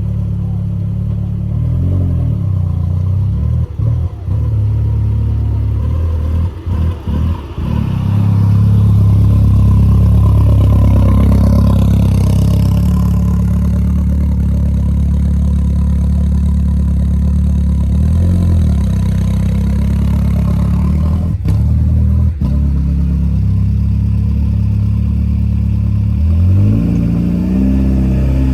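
Volkswagen Jetta GLI's engine running while the car is driven, a steady drone with a swell in revs about eight seconds in and brief dips in level around four and seven seconds in.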